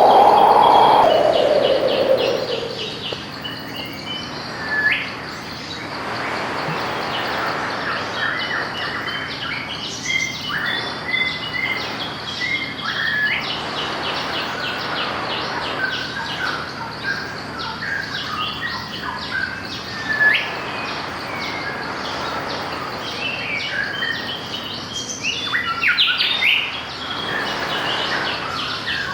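Several birds chirping and trilling, with fast repeated notes and short upward whistles, over a steady hiss of surf. A louder swelling sound fades out over the first couple of seconds.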